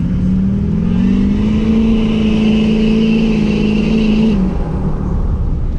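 Vehicle engine pulling hard under acceleration, plausibly a Duramax turbodiesel pickup. Its note steps up in pitch and holds for about three seconds with a high whistle over it, then falls back to a lower steady drone about four seconds in.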